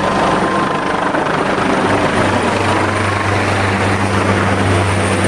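State police helicopter flying low overhead: a loud, steady rotor and engine noise, its low hum growing stronger about two seconds in.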